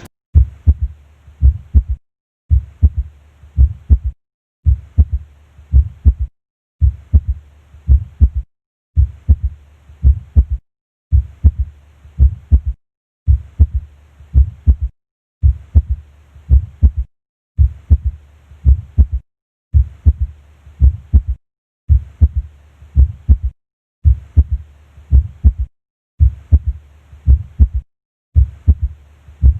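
Heart sounds at the cardiac apex: low lub-dub beats, each followed by a third heart sound (S3), a physiological S3 of early ventricular filling. The beats come in short runs broken by brief silences about every two seconds.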